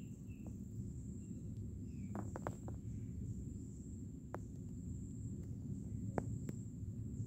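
Outdoor ambience: a steady high-pitched insect trill over low rumbling noise, with a few short faint clicks a couple of seconds in and again near the end.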